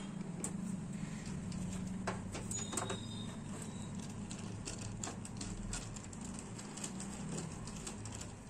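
Hand screwdriver driving motherboard mounting screws into a steel computer case: scattered small clicks and scrapes of metal on metal, over a steady low hum.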